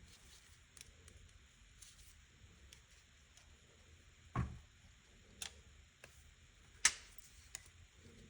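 Hand tools and small metal parts being handled and set down during carburettor work: scattered light clicks, a dull knock about four seconds in, and a sharp click near the end, the loudest sound.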